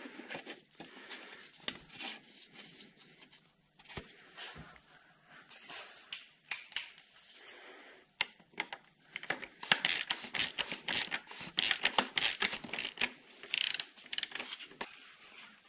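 Oil filter housing cap being threaded back on by hand, with light scraping and scattered clicks, then a ratchet wrench on a 24 mm socket clicking rapidly in runs from about halfway through as the cap is run down.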